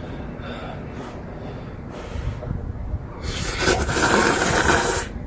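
A person slurping a mouthful of instant ramen noodles, a loud hissing suck lasting about two seconds, starting a little after the middle.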